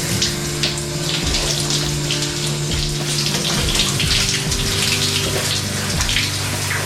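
Shower spray running steadily, a continuous hiss of falling water. Background music with held low notes plays underneath.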